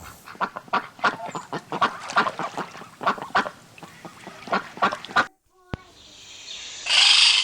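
Waterfowl giving many short honking calls in quick succession. About five seconds in they cut off suddenly, followed by a single click and, near the end, a burst of loud hissing noise.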